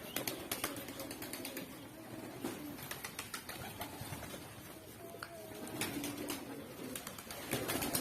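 Domestic pigeons cooing in low, short hums, with many scattered sharp clicks and taps among them.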